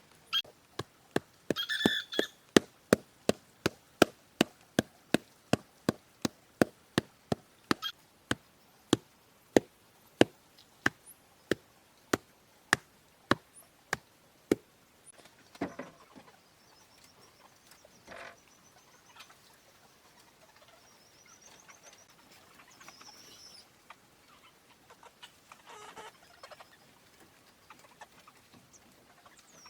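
A long run of sharp, evenly paced hand-tool strikes, about two a second, that stops about halfway through. Afterwards chickens and small birds call faintly.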